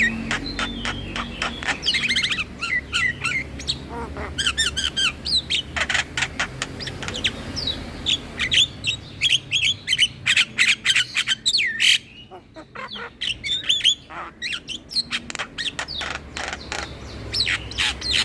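Javan myna (jalak kebo) singing a fast, varied chatter of clicks, short whistles and harsh squawking notes, with a short lull about twelve seconds in.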